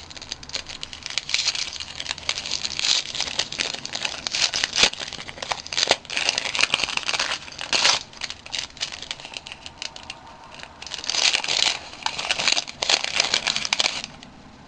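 Wrapping on a small gift-wrapped package crinkling and tearing as it is pulled open by hand, in irregular bursts with a few sharp crackles, easing off briefly then picking up again near the end.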